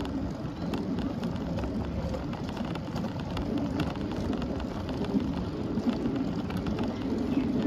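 Steady rushing noise of a bicycle in motion, with wind on the microphone and tyres rolling on the pavement, dotted with faint light clicks.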